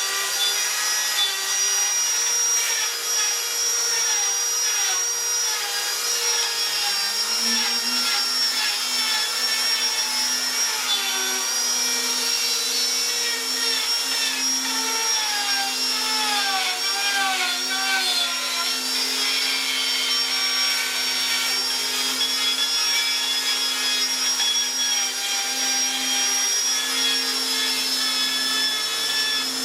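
Electric power tool motor running steadily with a high whine. A second lower motor tone spins up about seven seconds in and keeps running.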